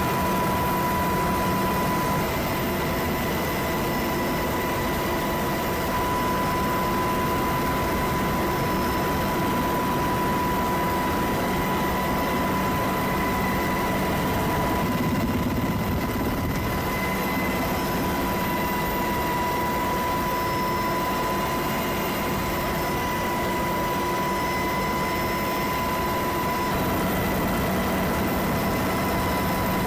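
Military helicopter in flight, heard from inside the cabin: a steady, loud drone of rotor and turbine with a high whine held at one pitch.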